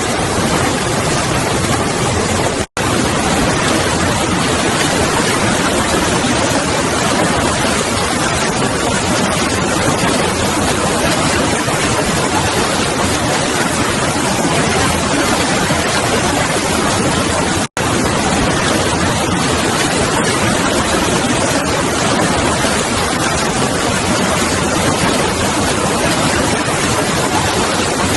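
Loud, steady rushing of floodwater, a constant roar across all pitches that cuts out abruptly twice.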